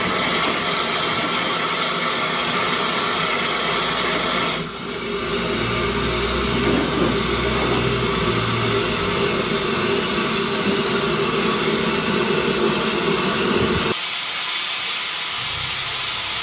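Steam escaping from a narrow-gauge saddle tank steam locomotive with a loud, steady hiss. The hiss changes sharply in character twice, and a low hum sits underneath for a few seconds in the middle.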